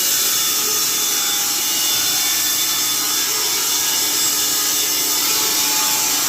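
Carpathian SMFA 100 automatic horizontal band sawmill cutting lengthwise through a fir log: a steady, even hiss of the band blade in the softwood, with no change in pace.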